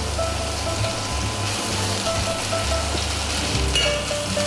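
Venison fillet sizzling as it sears in hot oil in a frying pan, a steady hiss, under background music with a bass line and short repeated notes.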